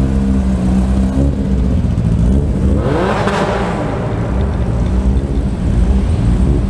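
Car engines running in a large indoor hall, with one car revving up and back down as it passes close by about three seconds in.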